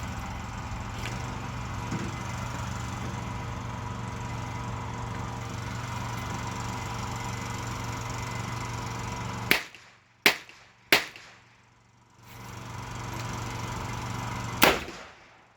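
A steady low hum, then four sharp gunshots: three in quick succession about nine and a half seconds in, and a fourth about four seconds later.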